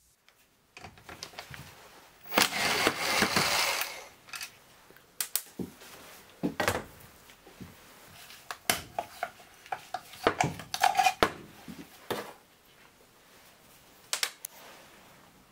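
Metal handling sounds from taking the oil pickup out of a Yamaha XT600 aluminium crankcase half. A rough scraping noise comes about two seconds in and lasts over a second, followed by scattered clicks and knocks of the part and its screws against the case and the metal bench.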